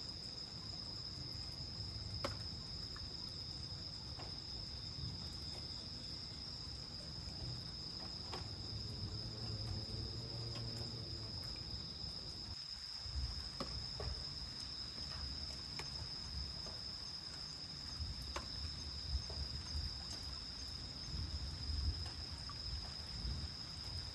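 Night insects making a steady, high-pitched drone. A low rumble comes and goes underneath, and there are a few faint sharp clicks.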